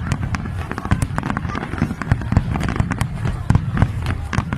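Fireworks display with many sharp bangs and crackles in quick succession over a steady low rumble.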